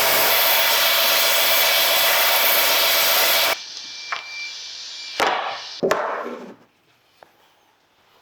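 A woodworking power tool running on wood with a steady noise, then cutting off suddenly about three and a half seconds in, followed by two sharp knocks of wood.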